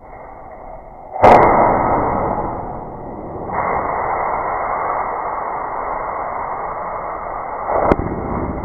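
Diwali firework rocket firing up a long plastic pipe: a sudden blast about a second in, then a long rushing hiss of its burning charge that dips and swells, and a short sharp crack near the end.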